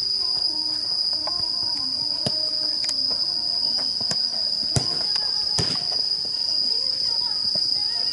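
Futsal ball kicked during play: several sharp thuds, the loudest nearly five seconds in, with faint shouts of players, over a steady high-pitched drone.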